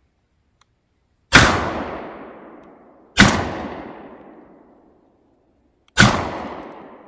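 Three 12-gauge shots from an ATI Bulldog semi-automatic bullpup shotgun, firing a slug, then buckshot, then birdshot, all 2¾-inch shells. The first two come about two seconds apart and the third nearly three seconds later, each a sharp bang that rings on and fades over a second or more.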